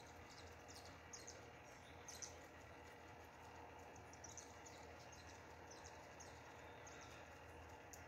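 Near silence: faint room tone with a steady low hum and scattered, very faint short high chirps.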